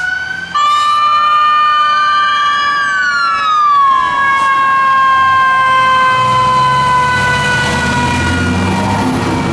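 Fire truck sirens: after a sudden cut about half a second in, one siren tone sweeps up and then falls away, while another slides slowly down in pitch. A heavy truck engine rumbles in underneath from about six seconds.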